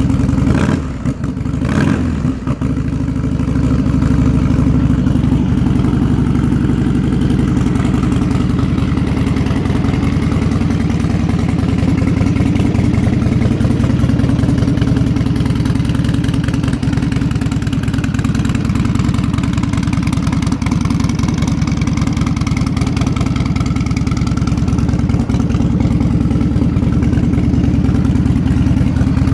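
A 2008 Buell Lightning XB12Scg's air-cooled 1203 cc V-twin idling through its custom straight-pipe exhaust, just after a start. It runs unevenly for the first few seconds, then settles to a steady idle.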